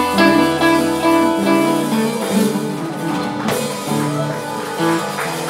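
Live band playing a song: drums, bass and keyboards, with held notes changing every fraction of a second.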